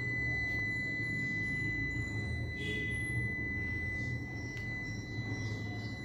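Steady high-pitched whine over a low, even hum.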